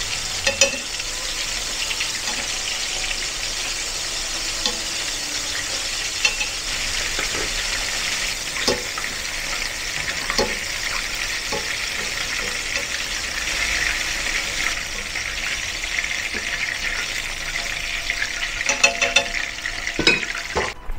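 Flour-coated chicken pieces deep-frying in hot oil in a stainless steel pan, a steady sizzle throughout. Now and then chopsticks and a slotted metal skimmer clink against the pan, several times in quick succession near the end as the pieces are lifted out.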